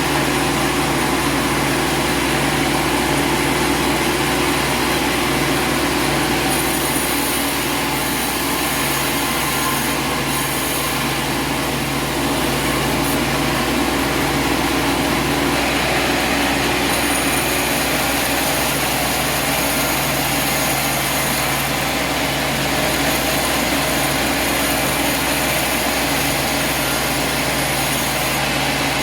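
An engine running steadily, a continuous mechanical drone with a hiss over it. A thin high-pitched band comes and goes over the top, once early on and again for about ten seconds later.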